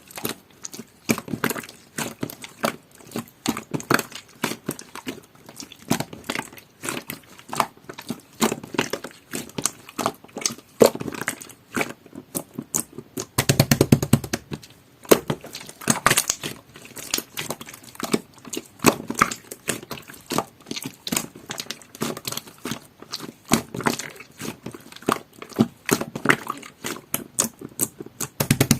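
Jelly-textured slime being squished and pressed by hand, giving a steady run of irregular wet clicks and pops, with a fuller squelch about halfway through.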